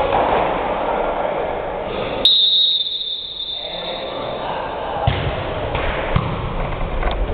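Echoing gym chatter, then about two seconds in a single short blast of a referee's whistle, one steady high note lasting about a second. A couple of sharp thumps of a volleyball on the hardwood follow.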